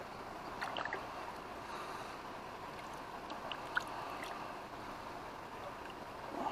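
River water rushing steadily, with a few short, high clicks over it about a second in and again near the middle.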